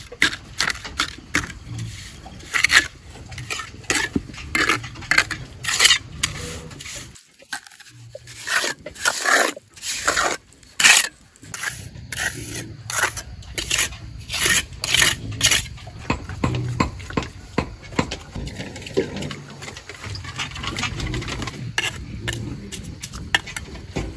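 Mason's trowel scraping and scooping cement mortar and spreading it onto concrete blocks, in a run of short, sharp scrapes. There is a brief break about seven seconds in.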